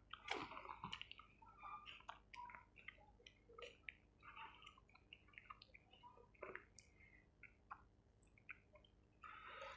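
Faint, close-miked chewing and wet mouth sounds of someone eating chicken curry with rice: irregular soft smacks and small clicks.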